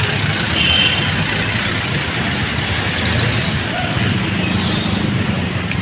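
Busy street ambience: a steady wash of traffic noise with faint background voices.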